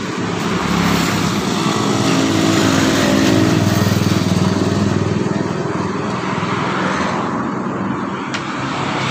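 Small pickup truck's engine running steadily at idle, loudest about three to four seconds in and then slowly getting fainter.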